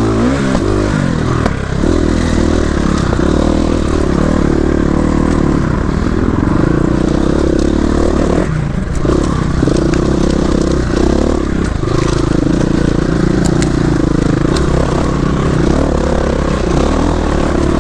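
Off-road dirt bike engine running under load on a trail, revs rising and falling as the rider works the throttle, with scraping and clattering from the terrain under the bike.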